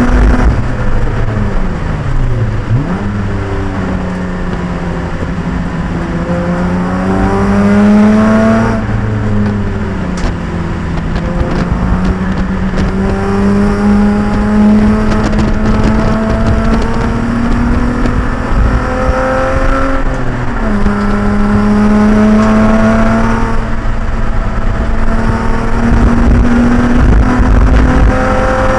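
Endurance race car's engine running hard at track speed, heard from inside the car over steady road and wind noise. Its pitch climbs steadily as the car pulls, then drops sharply twice, near 9 s and again near 20 s, as the driver shifts or lifts.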